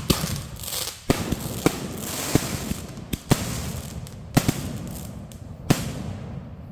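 Fireworks going off: a string of sharp bangs at irregular intervals with crackling between them, thinning out near the end.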